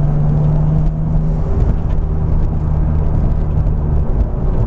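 Turbocharged BMW S52 straight-six in a Z3 M Coupe running at a steady, even speed while the car is driven, heard from inside the car over road noise. The exhaust is quiet, with the wastegate plumbed back into the exhaust.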